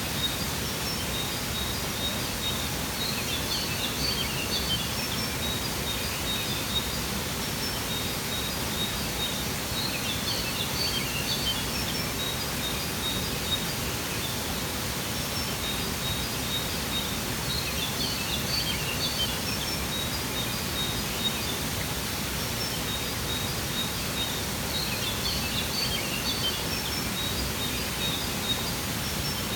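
Waterfall water rushing steadily, with small birds twittering high above it in short clusters about every seven to eight seconds.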